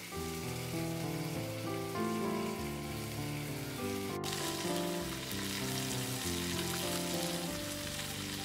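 Frogs sizzling on a hot clay roof tile, a steady fizzing hiss, with background music of held notes that change pitch every fraction of a second over it.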